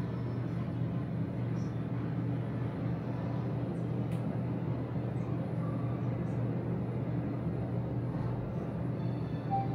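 Hyundai Elevator traction elevator car riding upward, a steady low hum and rumble of travel heard inside the cab.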